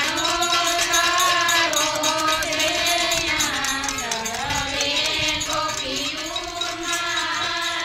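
Singing of a Gujarati devotional song to Gor Maa (a Gor Maa geet), one melodic line of long, sliding notes.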